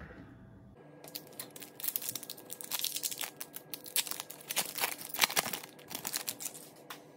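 Foil wrapper of an Upper Deck SP Authentic hockey card pack crinkling and tearing as it is pulled open by hand, a dense crackle starting about a second in.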